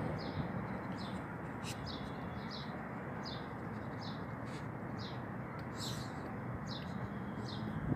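A small bird chirping over and over, short downward-sliding chirps about one and a half a second, over a steady background hiss, with a few faint clicks.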